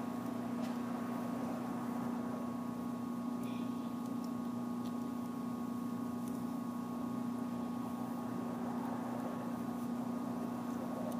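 A steady low electrical or mechanical hum, with a few faint clicks of needle-nose pliers working a hole in a plastic bottle cap.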